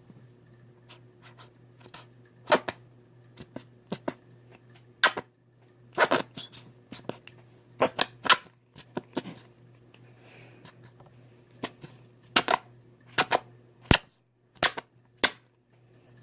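Slime being kneaded and squeezed by hand, giving irregular sharp pops and clicks as air pockets burst, over a steady low hum.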